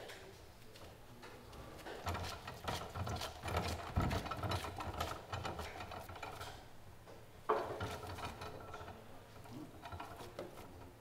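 Raw beef slices and sheets of fat being laid onto a vertical döner skewer and pressed down by hand: wet slaps and squelches with irregular clicks, and two sharper thumps about four and about seven and a half seconds in.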